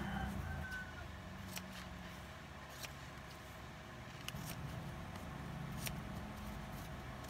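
Faint paper rustling and a few soft clicks as sheets of kraft sticker labels on yellow backing are handled and sorted, over a low steady hum.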